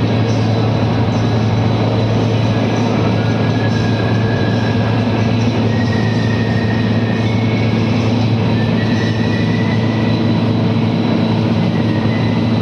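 Steady machine drone: a constant low hum under an even hiss, with faint high tones drifting slowly.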